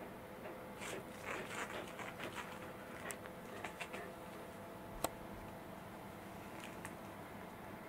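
Soft rustling and light pattering for the first few seconds, with one sharp click about five seconds in: dogs moving about on a wooden floor and a plastic bag of soy pulp being handled.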